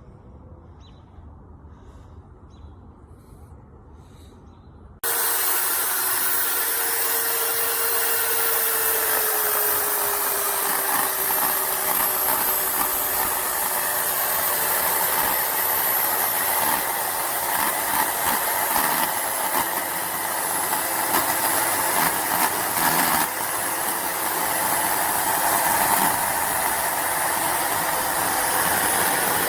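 Quiet for the first few seconds with faint high chirps, then a loud steady hissing machine noise cuts in abruptly about five seconds in, with a faint tone inside it sliding slowly lower.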